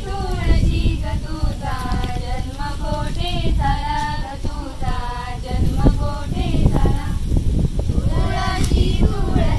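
A group of girls and women singing a traditional Marathi folk song together for a circle game.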